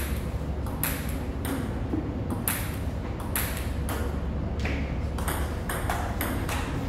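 Table tennis rally: the celluloid ball clicking off the bats and bouncing on the table, a string of sharp ticks about every half second to a second.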